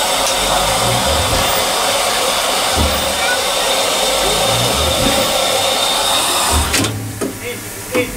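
Steady, loud hiss of steam in the cab of Caledonian Railway No.419, a steam locomotive, with a few low thumps under it. The hiss cuts off suddenly about two-thirds of the way through, leaving a quieter background with a few light clicks.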